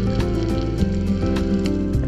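Background music with a steady beat and sustained bass and melody notes.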